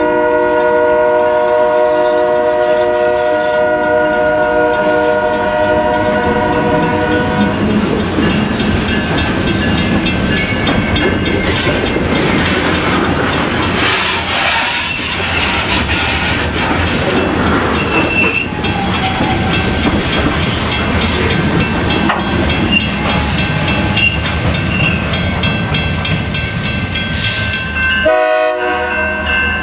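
Diesel freight locomotive's air horn blowing one long chord for about seven seconds, then the rumble and rail clatter of the train rolling past. The horn sounds again near the end.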